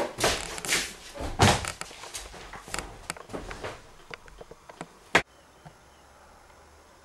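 Thumps and footsteps, loud at first and growing fainter over about four seconds, then a single sharp click about five seconds in, after which only a faint steady hiss remains.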